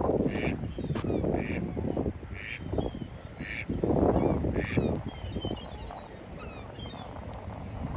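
Ducks quacking about once a second, with many small birds chirping rapidly, mostly in the second half.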